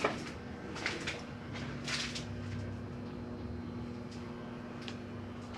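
Quiet room tone with a steady faint hum, broken by a few soft knocks and rustles, the clearest about two seconds in.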